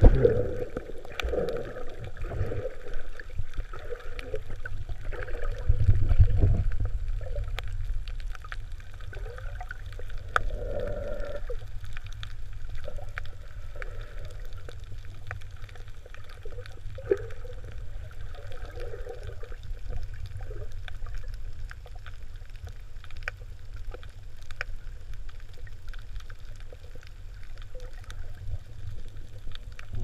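Underwater sound heard from a moving camera: a steady low rumble of water, scattered sharp clicks, and brief gurgling bubble sounds now and then, swelling loudest about six seconds in.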